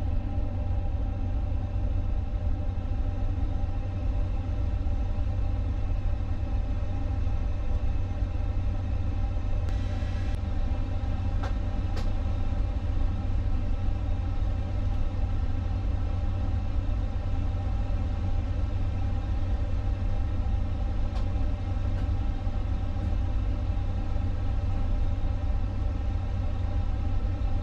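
Steady flight-deck ambience of a parked Airbus A350: a constant low rumble with an even ventilation hum, and a few faint clicks.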